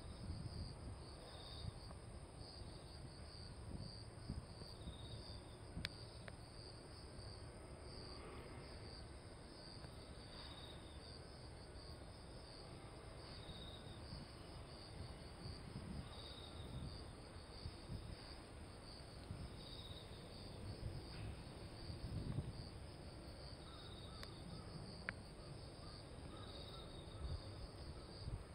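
Faint chirping of crickets and other insects: a steady high trill, with short chirps repeating every second or two, over a low outdoor rumble.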